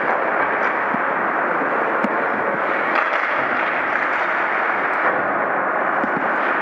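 Steady rushing noise of an ice rink during hockey play, broken by a few short, sharp clacks about a second apart.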